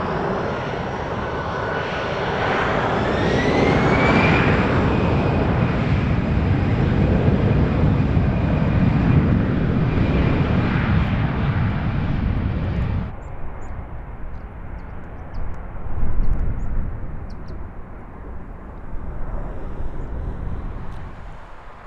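Airliner's engines running loud, with a whine that rises in pitch about two to four seconds in. The sound cuts off abruptly a little past halfway, leaving a fainter low rumble.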